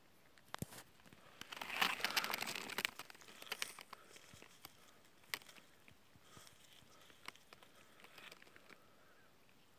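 Dry leaf litter and grass stems rustling and crackling as someone moves and reaches among them, in a dense patch about one and a half to three seconds in, then scattered small snaps and ticks.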